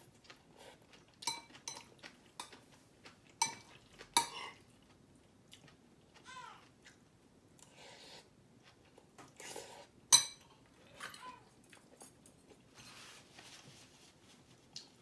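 Eating utensils clinking and scraping against a bowl of mixed rice: a few sharp clinks with a short metallic ring, the loudest about ten seconds in, and softer scrapes between them.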